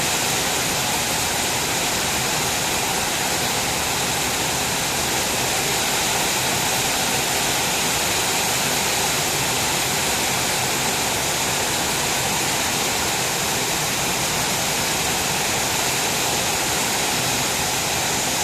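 Rain falling steadily and heavily, a dense even hiss without a break.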